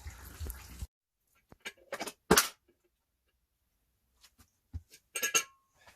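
Coolant running out briefly and cutting off abruptly, then scattered clicks and knocks of hand tools and metal engine parts being handled, the loudest about two seconds in and a cluster near the end.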